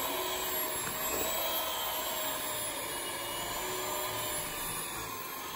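Electric hand mixer running steadily on its second speed, its beaters whirring through butter, margarine and egg yolks in a metal bowl.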